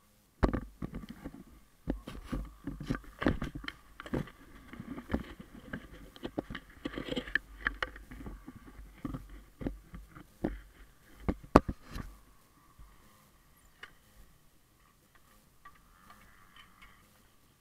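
Rubbing, scuffing and irregular knocks of motocross goggles and gloved hands against a helmet that carries the camera, as the goggle strap is pulled on. The knocks thin out about twelve seconds in, leaving faint rustles.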